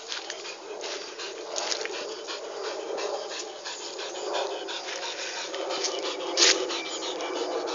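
Dog panting steadily while hunting, with scattered short clicks and one louder click about six and a half seconds in.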